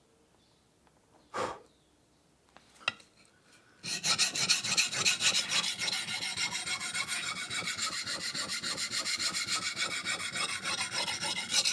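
Steel blade being stroked rapidly back and forth on a medium-grit diamond sharpening stone: a steady, even rasping scrape that starts about four seconds in, after a quiet stretch with a soft rustle and a few small clicks.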